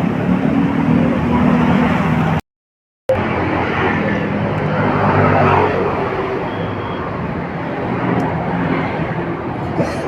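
Yamaha Vega R's single-cylinder four-stroke engine running steadily on its newly replaced cylinder block, piston, rings and cam chain. The sound cuts out completely for a moment about two and a half seconds in, then resumes.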